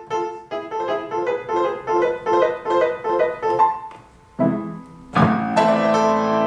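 Piano music: a run of quick, evenly paced notes, a brief pause, then a low note and a loud chord that is held and rings out.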